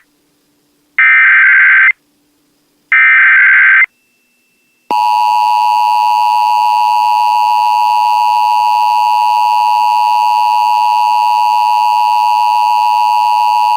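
Emergency Alert System signal on FM radio: the end of the SAME header, harsh digital data bursts about a second long and a second apart, two of them within the first four seconds. About five seconds in, the steady two-tone EAS attention signal starts and holds for about nine seconds.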